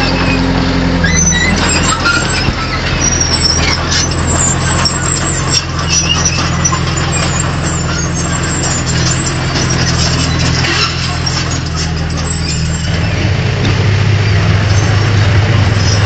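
Heavy construction machine's diesel engine running steadily, with scattered clanks and knocks over it; the engine note grows louder about three-quarters of the way through.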